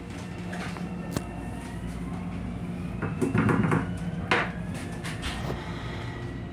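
Plastic toilet seat in an M7 railcar restroom being lowered onto the stainless-steel bowl, clattering and knocking, with one sharp knock as it comes down. Underneath runs the steady rumble of the moving train, with a faint whine that rises slowly in pitch.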